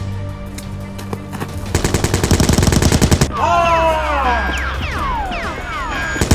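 Rapid machine-gun fire sound effect for about a second and a half, followed by a cluster of falling whistling tones, over background music.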